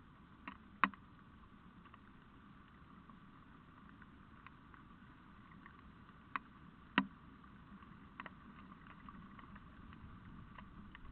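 Faint steady hiss of a night-time trail camera's microphone, broken by a handful of sharp clicks, the loudest about a second in and about seven seconds in.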